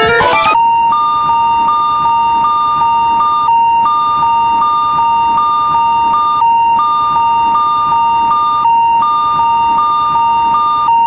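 Electronic warning bell of a Japanese railroad crossing (fumikiri): a steady high tone with a second, higher tone pulsing about twice a second, with a few short breaks. Music cuts off about half a second in.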